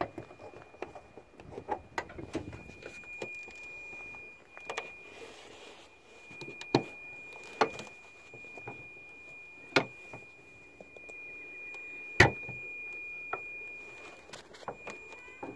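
Car bonnet being released, lifted and propped open on a Citroën C4 Picasso: several sharp metal knocks and clicks a second or two apart, the loudest about twelve seconds in.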